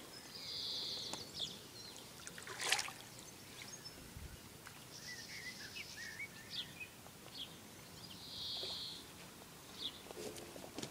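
Birds calling and singing around a lake: short high buzzy trills, three of them, among scattered chirps, over a faint steady outdoor background, with one sharp click about three seconds in.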